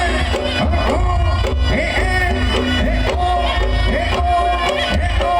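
Loud live jaranan music: hand-drum (kendang) strokes and a melody line sliding up and down in pitch over a heavy, booming bass.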